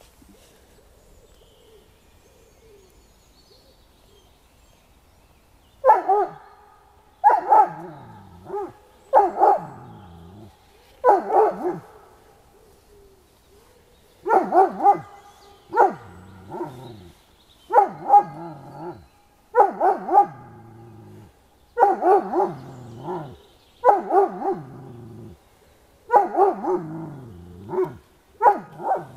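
Dog barking repeatedly at the sled figure during a mental-test sled exercise. The barks begin about six seconds in and come one every one to two seconds.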